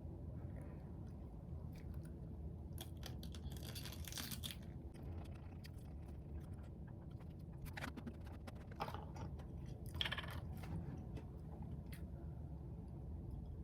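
Faint handling sounds: scattered light clicks and taps with a few brief rustling scrapes, over a low steady hum.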